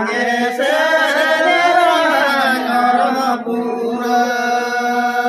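Group of men singing a Santali song together. The melody moves for the first three seconds, then settles into one long held note.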